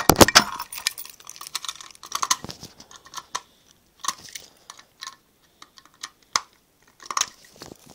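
Scattered sharp clicks and taps from handling an FCI MS6 fire alarm pull station while resetting it, with a dense cluster of clicks at the start and single clicks every second or so after.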